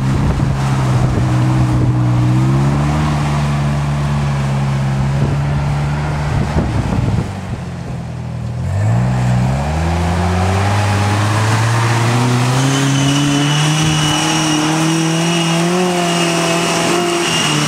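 Engine of an off-road vehicle running under load. Its pitch holds, drops about halfway through, then climbs steadily as it accelerates again, with a faint high whine in the latter half.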